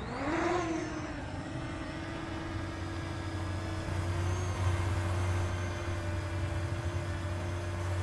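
Parrot Anafi quadcopter's motors spinning up for takeoff, a rising whine in the first half-second, then settling into a steady hovering hum as it lifts off and climbs slowly. A low rumble joins about two and a half seconds in.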